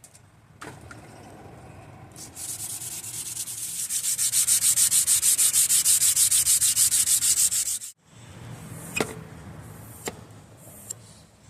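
Sandpaper rubbed by hand along a forged 5160 steel knife blade, hand sanding the freshly ground bevel. The strokes go back and forth fast and evenly, loudest in the middle, and stop abruptly about 8 seconds in; a few light clicks follow.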